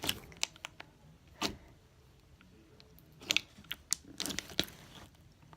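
Putty-like slime being squeezed and stretched in the hands, giving a scattered series of sharp little clicks and pops, about eight of them.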